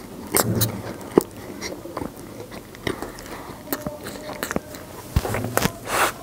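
Close-miked eating sounds: irregular crunchy bites and chewing, with a longer noisy burst near the end.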